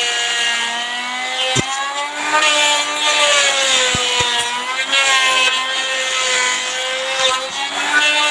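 Electric wood router running while cutting a tenon in wood. Its motor whine wavers slightly in pitch as the bit takes the load, with a few sharp clicks.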